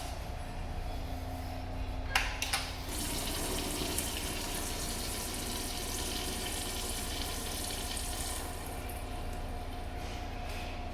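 Water running from a restroom plumbing fixture: a couple of clicks about two seconds in, then a steady rush of water that eases off after about eight seconds, over a low hum.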